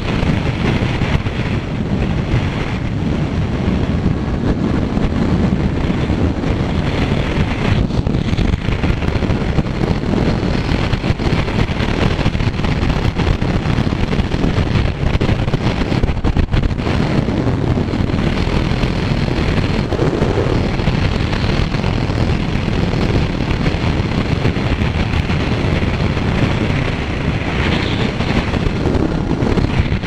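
Wind rushing over the microphone of a moving motorcycle, with the Kawasaki Z900's inline-four engine running steadily underneath.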